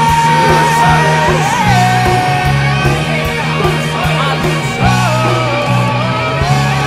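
Loud 1980s-style hair metal rock song: electric guitars, bass and a steady drum beat, with a male voice holding a long high note that bends down about a second and a half in, then further sung lines.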